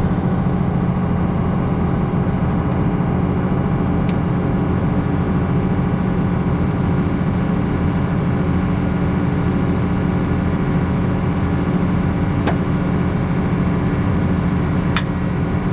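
Engine of a farm vehicle running at a steady speed, with a few faint clicks.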